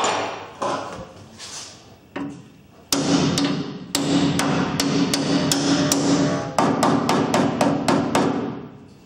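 A hammer striking the sheet-steel flange of a VAZ-2110 body panel to straighten it. First a few separate blows, then from about three seconds in a quick run of some three to four blows a second, the panel ringing with a steady low tone under the strikes.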